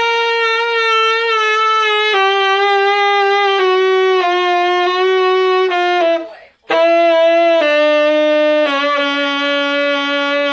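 Selmer Reference tenor saxophone playing held notes with vibrato, stepping down in pitch through two phrases with a short break about six and a half seconds in.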